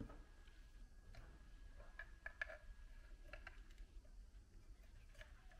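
Near silence with a few faint, scattered clicks of small 3D-printed plastic parts being handled and pressed onto a plastic fuselage.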